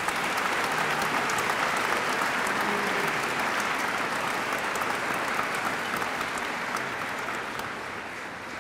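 Audience applauding, a steady wash of clapping that fades slowly over the last few seconds.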